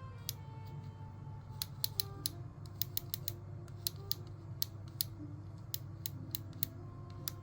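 Irregular sharp clicks and ticks, a dozen or more, from small parts being handled while a hair clipper is taken apart, over a steady low hum and quiet background music.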